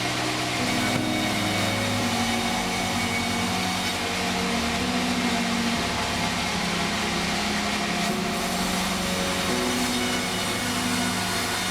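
Sawmill machinery running steadily: a continuous mechanical hum with a hiss on top, its engine or motor tones stepping up and down in pitch every second or two.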